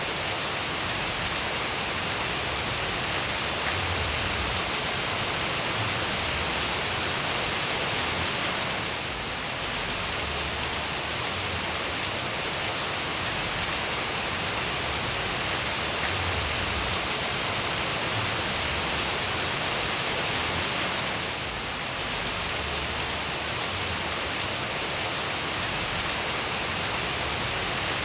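Steady, heavy-sounding rain: a dense, even hiss of falling drops that briefly softens twice.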